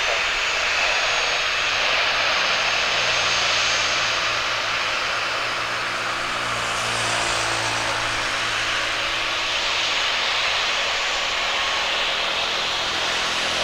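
Boeing 737-900ER's CFM56 turbofan engines running steadily as the jet turns onto the runway and rolls for departure, with a low droning tone through the middle.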